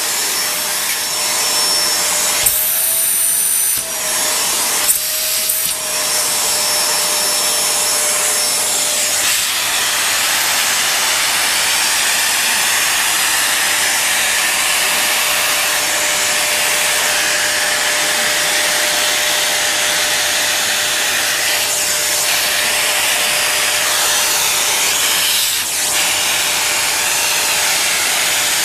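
Vacuum cleaner running steadily on a sofa, its motor whine rising briefly twice in the first few seconds.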